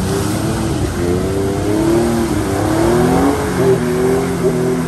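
A Jeep Wrangler's engine revving hard, rising and falling in pitch, as it ploughs into a deep mud hole with its tyres throwing mud and water.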